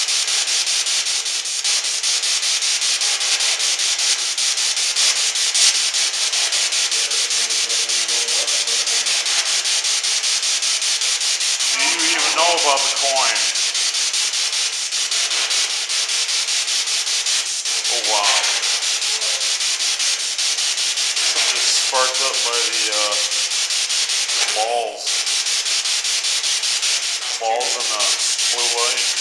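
Spirit box (P-SB7) sweeping through radio stations over an external speaker: a steady, loud, rapidly chopped static hiss. Brief fragments of broadcast voices break through several times from about twelve seconds in.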